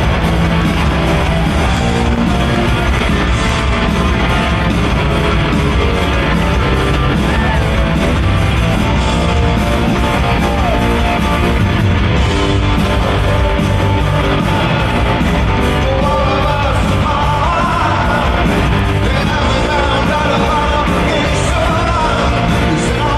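Rock band playing live in an arena, loud and steady, heard from the crowd. A voice comes in over the band about two-thirds of the way through.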